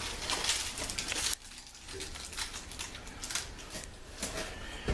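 Small metal doorknob hardware and screws being handled: light clicks and scraping, with a stretch of scraping in the first second and a half and a sharp click near the end.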